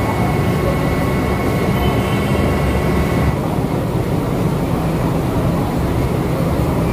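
Steady, loud mechanical rumble and hum, with faint high whining tones that stop about three seconds in.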